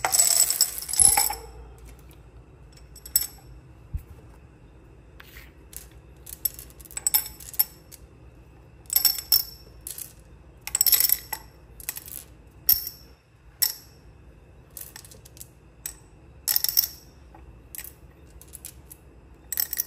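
Small stones clinking against one another and against the glass of a jam jar in about a dozen short, irregular bursts, as they are shifted to set a money plant cutting among them. The longest and loudest clinking comes in the first second or so.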